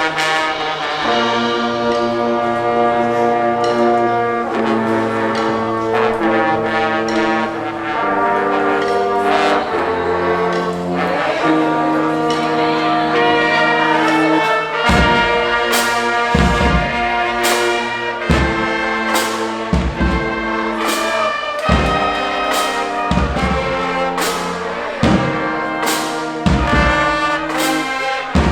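Marching band playing: the brass section holds slow, sustained chords, then about halfway through heavy drum hits come in, beating steadily under the horns.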